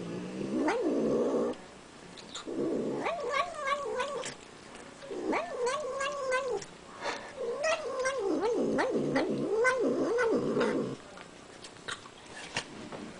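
Domestic cat making long, wavering vocal sounds while eating peanut butter from a spoon, in four stretches of one to three seconds with short pauses between. The sounds stop about two seconds before the end.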